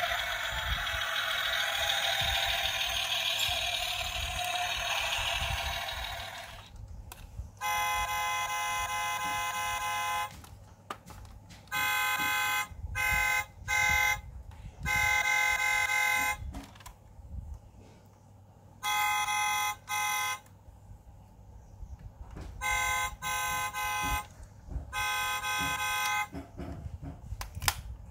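Sound module of a 1/24 Toyota Land Cruiser LC300 diecast model car, heard through its tiny speaker. For about six seconds it plays a tinny rushing engine-noise effect. Then it sounds a thin electronic horn in about nine blasts of varying length, the first one long.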